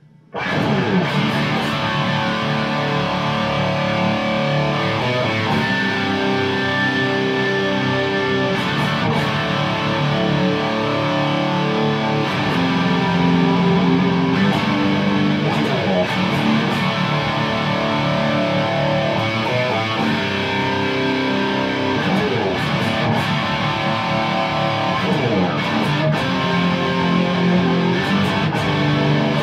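Electric guitar played through a 1971 Marshall Super Lead valve amplifier head, a continuous stretch of chords and riffs starting about half a second in.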